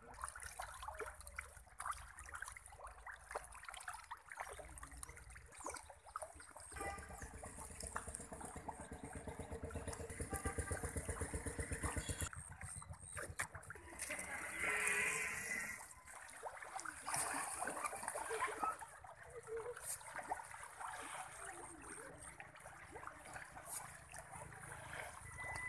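Small splashes and water sounds of tilapia breaking the surface of a pond as they feed. Near the middle, an engine with a regular beat grows louder for several seconds, then cuts off suddenly.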